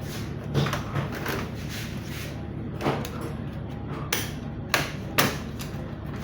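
Half a dozen sharp plastic clicks and taps as the latches holding an HP Pavilion G-series laptop keyboard are worked free, over a steady low hum.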